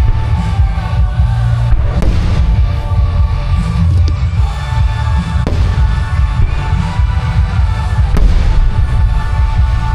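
Fireworks display with music over loudspeakers: the music plays on while about four sharp firework bursts go off, against a heavy low rumble.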